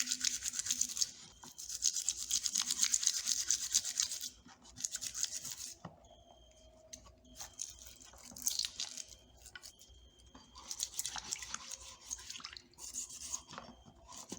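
Stiff brush scrubbing metal pliers by hand in quick back-and-forth strokes, cleaning off rust loosened by a vinegar soak. It comes in about six bursts of one to two and a half seconds, with short pauses between them.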